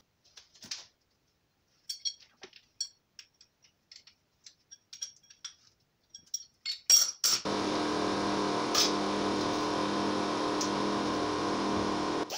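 Light metallic clinks and clicks as an abrasive ball is fitted into the collet of a pneumatic straight grinder and tightened with wrenches. About seven and a half seconds in, the air grinder starts and runs steadily with a hiss and a high whine.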